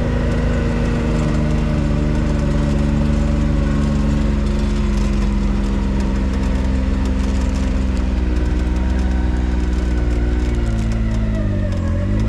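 Can-Am Maverick side-by-side's engine running steadily while driving, its pitch dropping briefly near the end and picking back up.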